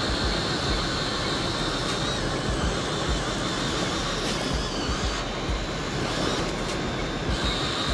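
Wind buffeting the microphone over the wash of breaking surf, with a thin, wavering high whine from the Huina RC excavator's electric motors that comes and goes.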